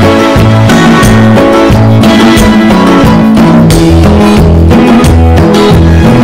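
Loud background music: a bass line stepping between notes under pitched instruments, with a drum beat.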